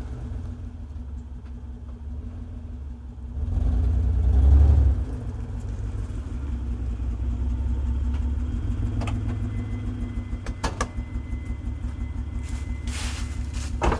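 1995 Mitsubishi 3000GT's V6 exhaust idling, briefly revved about four seconds in, then settling to an idle whose loudness pulses unevenly: the fluttering exhaust and rough idle that the owner suspects is a misfire.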